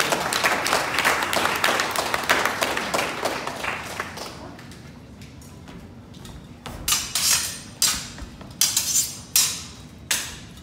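Audience clapping for the first few seconds, then steel longswords clashing in a fast exchange: about seven sharp, ringing blade strikes in three seconds near the end.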